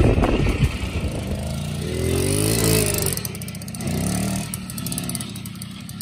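Motorcycle engine running as it rides over a bumpy forest track, with knocks and rattles loudest in the first second. The engine note rises and falls with the throttle about two and four seconds in, and the sound gets quieter toward the end.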